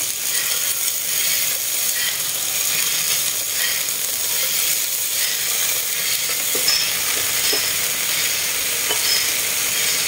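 Leaf-wrapped mushroom skewers sizzling in an oiled grill pan: a steady sizzle with a few small crackles as more skewers are laid in.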